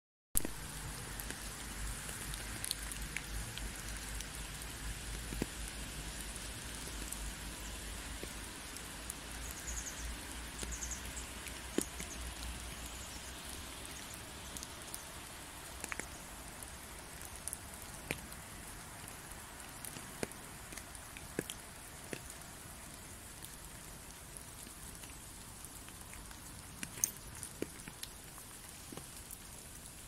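Rain falling: a steady hiss with scattered single drops ticking close by. A low rumble underneath fades out about halfway through.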